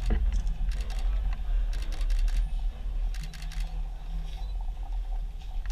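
Camera shutters clicking in short bursts, several quick clicks at a time, over a steady low room hum.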